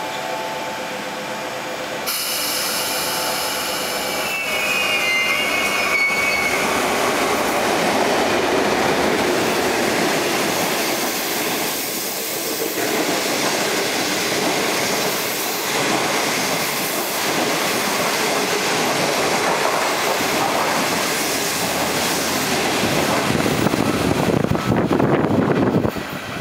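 A DF11 diesel locomotive hauling 25Z passenger coaches running through the station at speed: continuous loud wheel-on-rail noise building about two seconds in, with a brief high wheel squeal a few seconds later and a run of rapid clacks from the wheels near the end.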